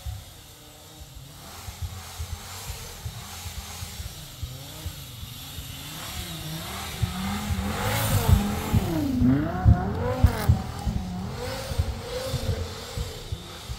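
Twin-turbo V10 in an Audi UrS6 revving up and down hard as the car spins its wheels and slides through snow. The engine pitch rises and falls over and over and is loudest around eight to ten seconds in, with a few sharp pops.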